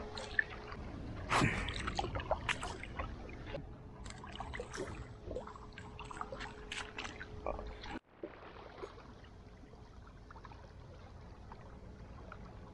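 Shallow sea water lapping and sloshing among shoreline rocks, with scattered small splashes and clicks as someone steps down the rocks into the water, and a louder rush about a second and a half in. About eight seconds in the sound drops abruptly to a quieter, even wash of water.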